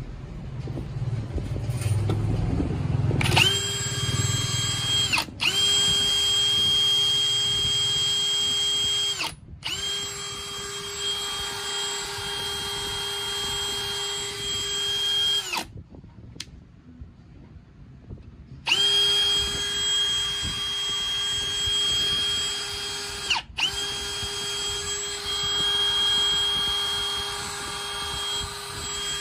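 AEG 18V brushless hammer drill running free with no load: a steady high-pitched motor and gearbox whine that starts about three seconds in and holds one pitch. It cuts out for a moment twice, stops for about three seconds midway, then runs again and winds down near the end.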